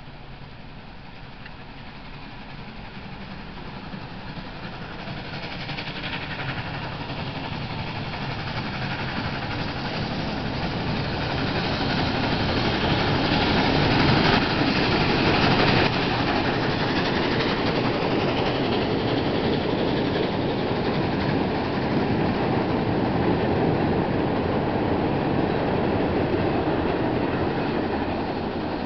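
Norfolk & Western 611, a J-class 4-8-4 steam locomotive, approaching and passing across a steel trestle bridge, growing louder for about fourteen seconds. Then the steady noise of train cars rolling across the bridge.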